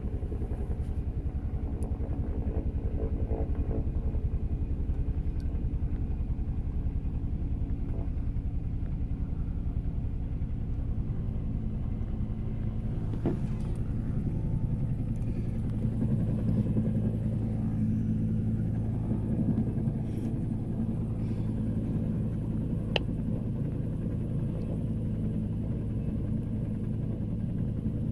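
Helicopter running, a steady rapid low chopping from the rotor with an engine hum; the low hum grows somewhat stronger about halfway through.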